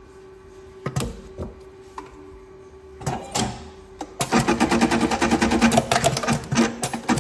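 Juki AMB button-sewing machine: a few separate clicks and clunks as the button and fabric are set under the clamp, then about four seconds in the machine starts stitching, a fast, even, loud rattle of needle strokes sewing the button on.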